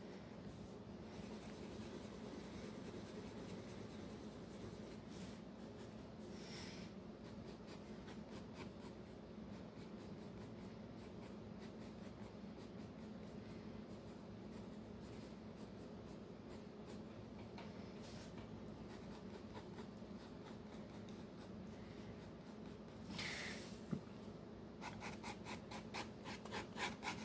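Pencil drawing on sketchpad paper: faint scratching strokes of graphite over a low steady hum, with a run of quicker back-and-forth rubbing strokes on the paper near the end.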